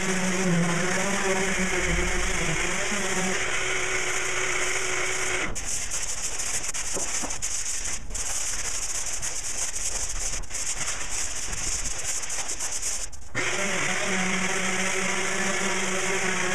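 Sanding on a car body buck: abrasive scratching against the hard surface over a steady machine hum. About five seconds in, the hum drops out and only the rasping rubbing strokes remain, and the hum comes back near the end.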